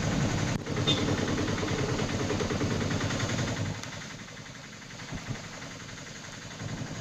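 Vehicle engines idling under a steady hiss of noise. It is louder for the first three and a half seconds, then quieter.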